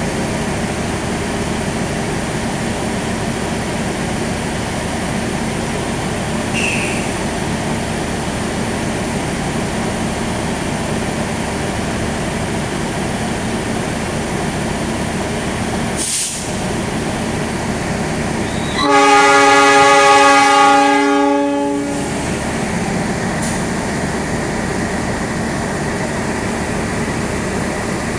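CC 206 diesel-electric locomotive idling with a steady hum while standing at the platform. About two-thirds of the way in, its horn sounds one blast of about three seconds, the loudest sound here, with a sharp click a few seconds before it.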